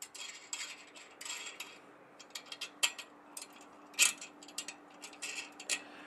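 Irregular metallic clicks and clinks from the pole-mount clamp bolts of a microwave dish antenna being worked by a gloved hand to loosen the mount. The sharpest click comes about four seconds in.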